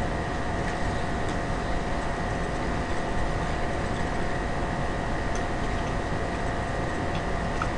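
Steady hiss and hum of room noise with a few faint small clicks.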